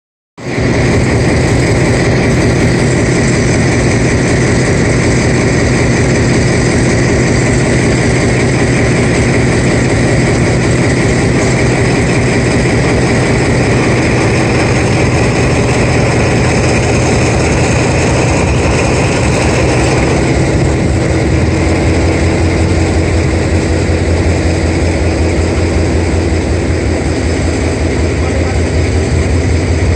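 Locomotive engine idling: a loud, steady low drone with a few higher steady tones above it, from the diesel locomotive coupled to the front of a steamed-up DR Class 52 steam locomotive. The low note shifts slightly about twenty seconds in.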